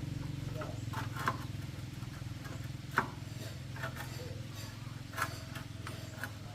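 A machine running with a steady low hum, with a few sharp knocks now and then.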